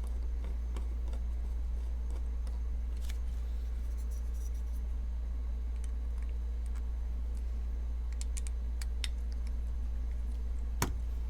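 Faint small clicks and scrapes of metal parts being handled as a folding knife is put back together, with one sharper click near the end, over a steady low hum.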